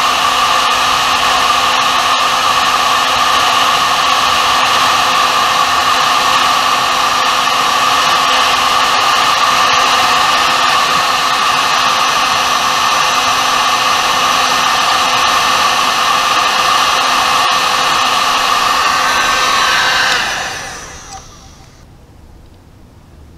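Electric heat gun blowing steadily, shrinking adhesive-lined heat-shrink tubing over wiring terminals. About twenty seconds in it is switched off and its fan winds down over a couple of seconds.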